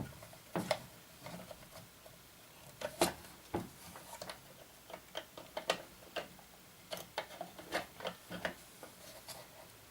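Small, sharp clicks and taps at uneven intervals: the metal parts of a Franz FB-4 electric metronome being handled and worked on during its tear-down.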